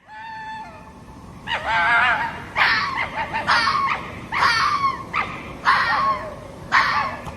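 Red fox giving a series of short pitched calls, about one a second, starting about a second and a half in, after a fainter drawn-out tone.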